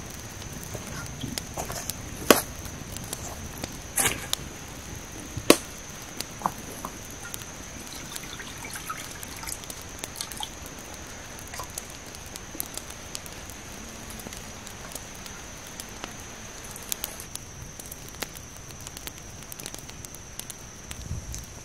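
Wood fire crackling in a clay-and-stone stove, with a few loud, sharp pops in the first several seconds. Around ten seconds in, water is poured from a pot into a frying pan on the stove with a light trickle.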